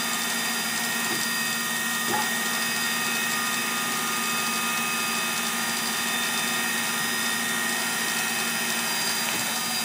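Sharp 8x20 automatic cylindrical grinder running under power: a steady motor whine and hum with several even tones held throughout, and a light click about two seconds in.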